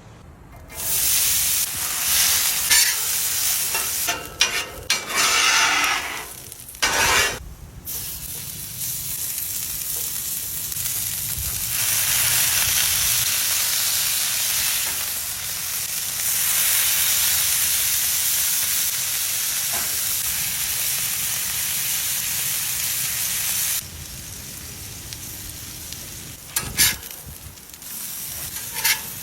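Food frying on a hot cooking surface with a steady sizzle. It breaks off briefly a few times in the first eight seconds, turns quieter from about 24 seconds, and has a couple of sharp clicks near the end.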